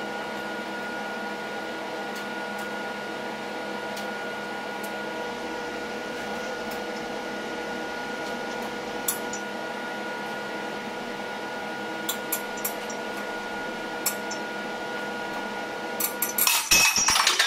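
3 mm stainless steel wire rope under tension in a hydraulic press, with a steady machine hum and a few sharp ticks as strands give. About a second before the end, the cable snaps under close to a tonne of load with a loud burst of metallic clatter.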